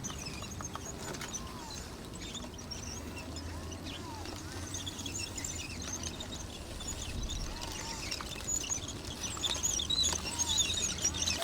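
Small birds chirping and twittering, busier toward the end, over a low steady rumble.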